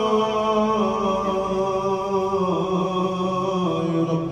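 Qur'an recitation: a man's voice chanting in the melodic tajweed style, drawing out long held notes whose pitch shifts slightly about halfway through.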